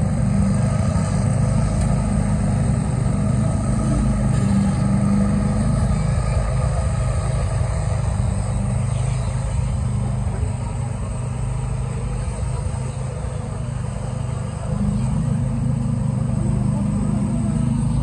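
Concrete pumping machinery running with a steady low engine drone that eases a little partway through and comes back near the end.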